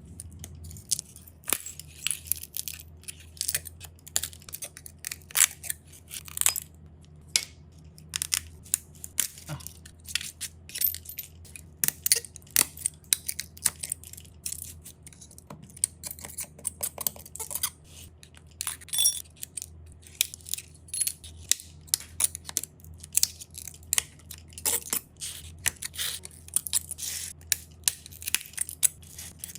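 Cracked phone back glass being broken up and scraped off: dense, irregular sharp crackles and clicks of glass fragments over a faint low hum.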